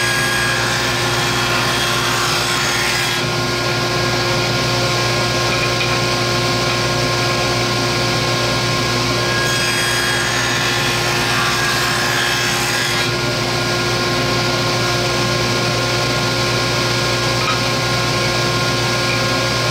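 Table saw with a ripping blade running steadily, making shallow grooves along wooden track stock. Brighter cutting noise rises near the start and again about halfway through as the board is fed past the blade.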